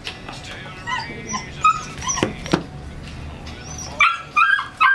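Old English Sheepdog puppy barking, with high-pitched yips and whimpers: a few sharp yips midway and a quick run of yips near the end. The owner takes it that he probably needs to go out for a pee.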